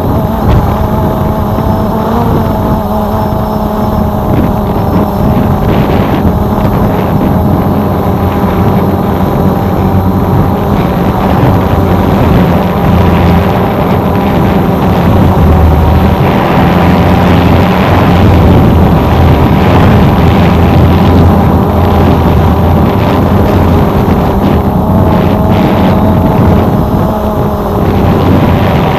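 A drone's motors and propellers whining steadily, the pitch wavering slightly, over a heavy low rumble.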